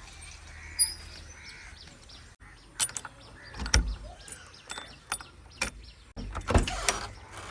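Backhoe loader at work: scattered metallic clanks and knocks over a low engine hum, with two heavy thumps, the first about four seconds in and the second a couple of seconds later.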